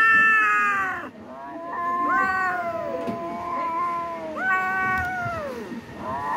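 Kittens yowling: a string of long drawn-out meows, each about a second and falling in pitch at its end, some overlapping; the loudest comes right at the start.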